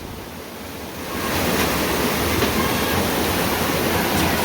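Floodwater rushing past in a steady noisy wash, fainter for the first second and then loud and constant from about a second in.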